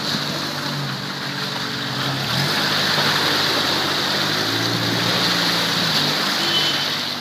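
A 4x4's engine working under load, its revs rising and falling, over a steady rushing noise.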